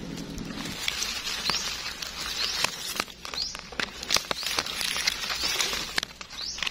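Gloved hands rustling and crackling through dry eucalyptus leaf litter and grass while picking a mushroom from the ground, with many sharp snaps and clicks. In the background a bird repeats a short rising chirp about once a second.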